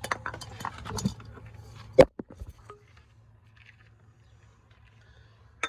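Hands handling a new oil filter: small clicks and crackles, then one sharp knock about two seconds in and a lighter click near the end.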